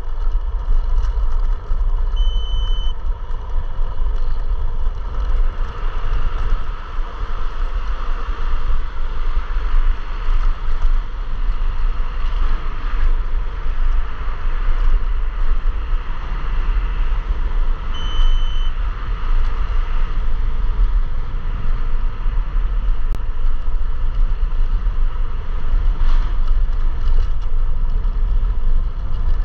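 Wind rushing over a chest-mounted action camera's microphone, with road and tyre noise from a moving electric scooter. A short, high beep sounds about two seconds in and again about sixteen seconds later.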